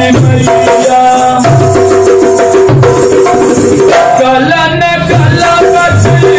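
A man sings a Bhojpuri devi geet in long, wavering held notes while beating a dholak by hand, its low drum strokes falling in a quick, steady rhythm.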